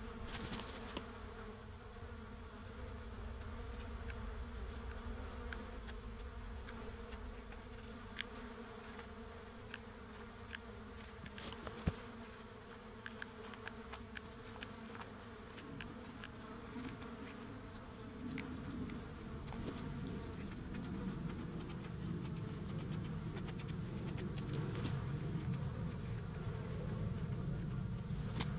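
Flies buzzing steadily around a freshly shot red deer carcass, with a few faint clicks. A low rumble grows louder in the second half.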